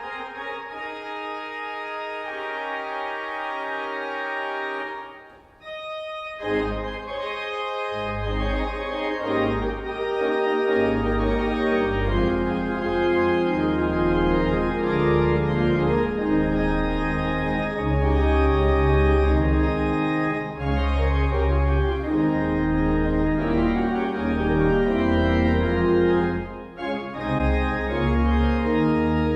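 Church organ playing slow held chords. It breaks off briefly about five seconds in, then comes back fuller, with deep bass pedal notes under the chords.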